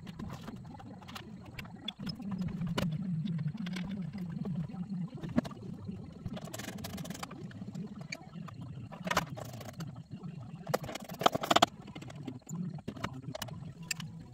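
Irregular clicks, knocks and clatter from hands working plastic dash trim and wiring under a van's dashboard, over a steady low hum; the loudest clatter comes in a few short clusters about seven, nine and eleven seconds in.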